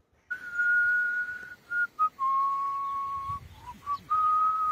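A man whistling a greeting through pursed lips: three long steady notes, the first highest and the second lowest, with short quick notes between them.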